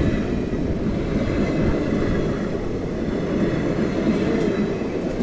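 Indian passenger train's sleeper coaches rolling past close by: a steady rumble of wheels on the rails.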